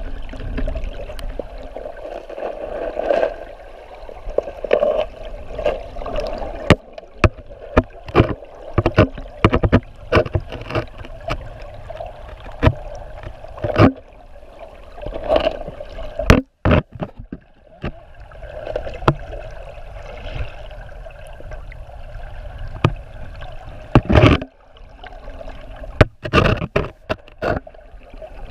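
Muffled rushing of flowing stream water heard by a GoPro underwater in its waterproof housing, broken by many sharp clicks and knocks as the housing is bumped and moved.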